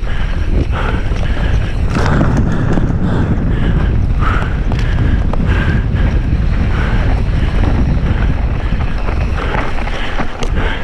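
Wind buffeting the microphone as a mountain bike descends a dirt trail at speed, with tyres rumbling over the ground and frequent short knocks and rattles from the bike over bumps.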